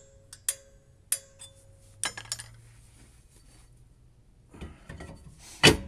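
Rear drum brake star adjuster being clicked over with a metal brake tool: a few sharp metallic clicks in the first two seconds, each ringing briefly, as the shoes are adjusted out towards a light drag. Near the end there is a stretch of rubbing, then a loud knock.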